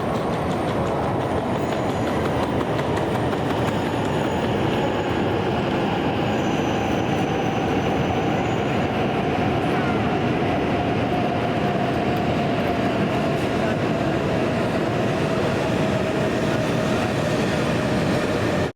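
E2 series Shinkansen train running: a steady rush of noise with a faint whine that slowly falls in pitch.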